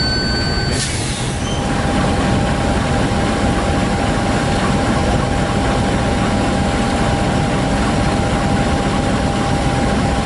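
CC 201 diesel-electric locomotive (GE U18C) idling at a standstill: a steady low engine rumble with a steady whine above it. Under a second in, a high squeal from the arriving train cuts off abruptly.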